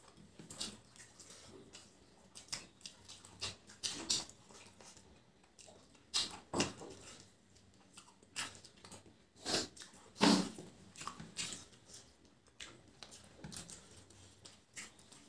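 Two people eating biryani with their hands: irregular wet chewing and lip-smacking, with a few louder smacks about six and ten seconds in.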